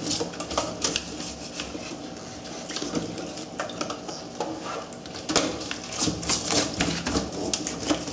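Plastic scrub brush scraping over a live crab's shell, with irregular scratching and knocks against a stainless steel sink.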